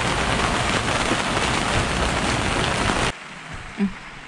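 Heavy rain and wind in a squall on a sailboat's open deck: a loud dense hiss with a low rumble of wind on the microphone. It cuts off abruptly about three seconds in, leaving a faint, steady rain hiss.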